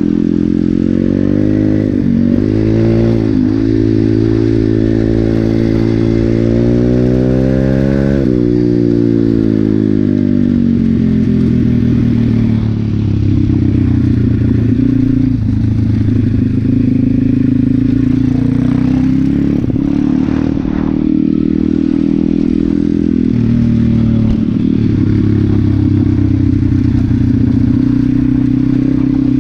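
Regulmoto Seven Medalist 150e pit bike's single-cylinder four-stroke engine running under way: the revs climb twice over the first eight seconds, dropping suddenly at each shift, then ease off and hold steady at a lower pitch.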